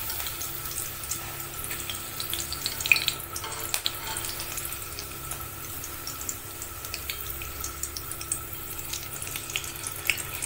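Curry leaves and green chillies deep-frying in hot oil: a steady sizzling hiss with scattered crackles and pops.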